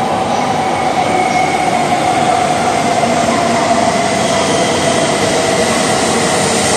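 E2 series Shinkansen train pulling into an underground station platform and slowing to stop: a loud steady rush of running noise with a tone that slowly falls in pitch as it brakes.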